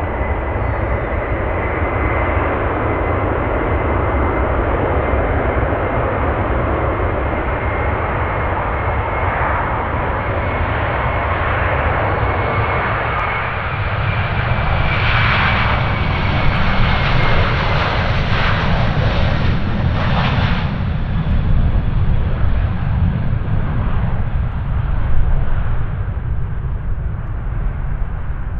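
Airbus A330 twin-engine jetliner at take-off thrust: a steady jet roar with a high fan whine on top. It grows louder and brighter about halfway through as the aircraft passes close on its take-off roll, then eases off a little as it climbs away.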